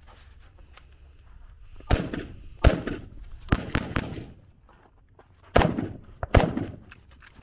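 AR-platform carbine firing seven shots in three groups: a pair about two seconds in, three quick ones around the middle, and a pair near the end. Each shot trails off in an echo.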